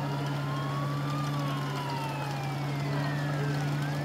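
Emergency vehicle siren in a slow wail, its pitch rising for about a second, falling for over two seconds, then rising again near the end. A steady low hum runs underneath, louder than the siren.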